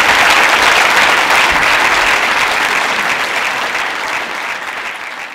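An audience applauding a speaker at the end of a talk, a dense clapping that fades gradually toward the end.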